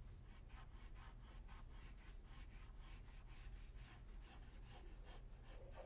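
Red Flair felt-tip pen drawing quick repeated strokes on paper: faint scratching, about four strokes a second.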